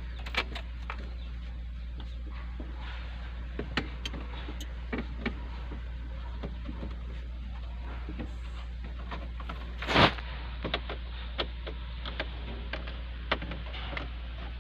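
Scattered small clicks and taps of a screwdriver and plastic dashboard trim being worked loose around a truck's instrument cluster, with one louder knock about ten seconds in, over a steady low hum.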